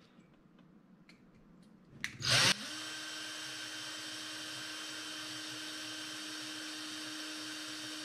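Ryobi cordless drill with a 1/16-inch bit starting about two seconds in, loudest at the start as it spins up, then running at a steady, even whine while drilling a pilot hole into the rivet of a diecast car's base.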